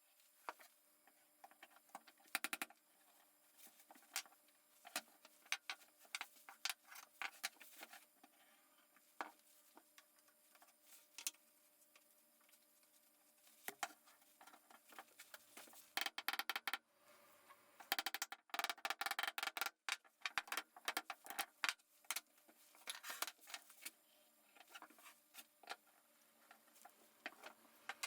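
Irregular light clicks and taps of wooden parts and hand tools being handled, coming thickest in a busy run about two-thirds of the way through, over a faint steady hum.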